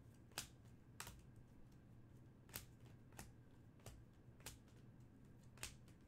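Topps Stadium Club Chrome trading cards being flipped one by one off a stack, a short light click or snap each time, about seven at uneven spacing, over faint room noise.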